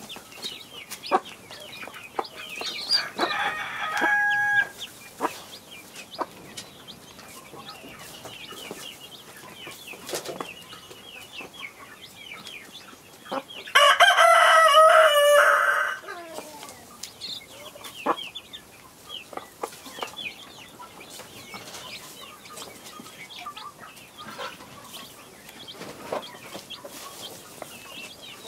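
Chicks peeping continually while they and a hen peck at grain, with scattered sharp pecking clicks. A rooster crows loudly once about halfway through, a call of about two seconds. A shorter call comes a few seconds in.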